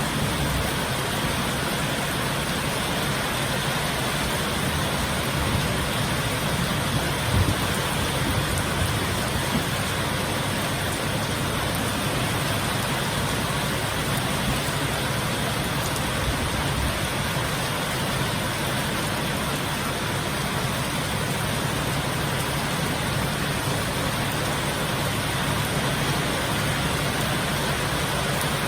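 Heavy rain falling steadily in a dense, even hiss, with a brief low thump about seven seconds in.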